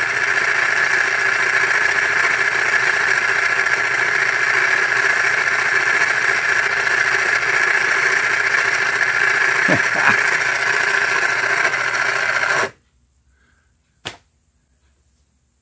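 Battery-powered engine sound of a Snoopy and his Bugatti model race car, running steadily, then cutting off suddenly about twelve and a half seconds in. A single click follows about a second and a half later.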